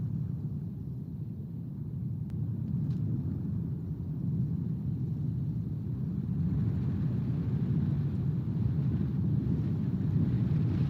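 Wind buffeting an outdoor camera microphone: a steady low rumble that grows somewhat stronger about halfway through.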